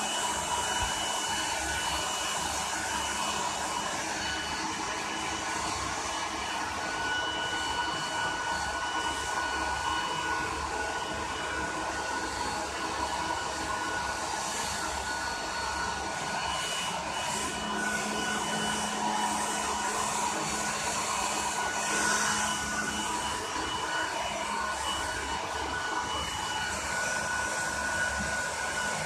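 Electric blow dryer running steadily, a continuous rush of air with a motor whine.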